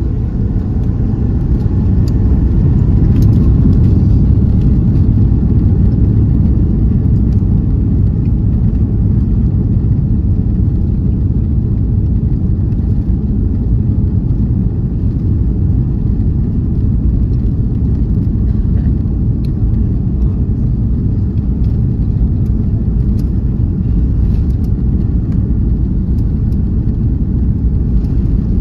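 Cabin noise of an Airbus A340-600 on its takeoff run, heard from inside. Its four Rolls-Royce Trent 556 engines spool up with a faint rising whine over the first few seconds, then settle into a loud, steady rumble at takeoff thrust as the airliner rolls down the runway.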